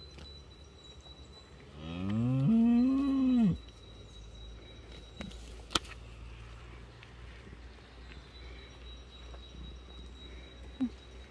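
Cow mooing once, about two seconds in: a single call that rises in pitch, holds for over a second, then breaks off abruptly.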